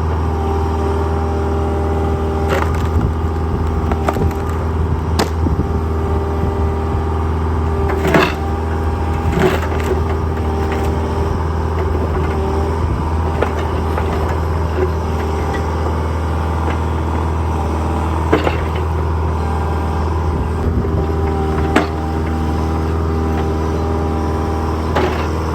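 Engine of earthmoving machinery running steadily under load, with several sharp clanks and knocks from the machine's work.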